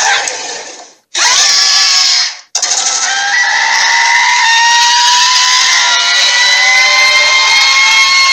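Dragon roar sound effects: two short noisy roars with brief gaps between them, then from about two and a half seconds in one long held roar whose pitch rises slowly and then holds steady.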